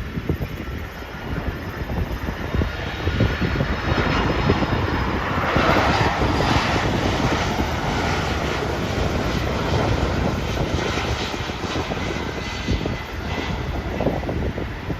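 ANA Cargo jet airliner passing close by, its jet engine noise swelling to a peak about six seconds in and then slowly fading, with wind buffeting the microphone.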